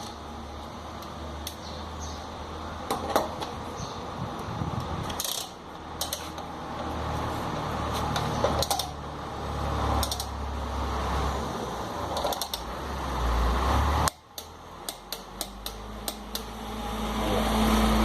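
Metallic clicks and tool handling as a click-type torque wrench tightens the rear wheel bearing nut, with a quick run of clicks near the end and a low hum underneath. The nut is being re-torqued because it had worked loose as the new bearing settled, which caused a noise from the rear wheel.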